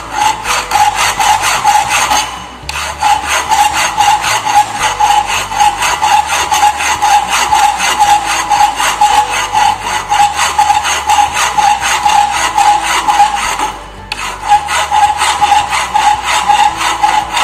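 Rough hand file rasping back and forth on a rusty steel plate held in a vise, in rapid, even strokes with a ringing note under them, pausing briefly twice. The file is taking off rust and smoothing the plate so it will weld cleanly.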